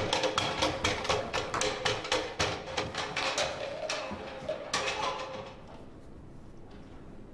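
A rapid, irregular run of light clicks and taps over a faint steady tone. It fades out about five and a half seconds in.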